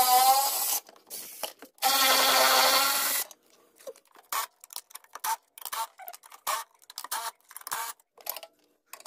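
Milwaukee Fuel cordless ratchet whirring as it spins out battery tray bolts, in two short runs: one at the very start and a longer one of about a second and a half about two seconds in. After that come scattered light clicks and rattles of loosened parts being handled.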